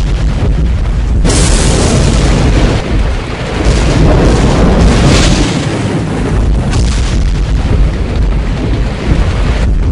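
Loud booming soundtrack: a heavy low rumble under a dense noisy wash that fills out about a second in.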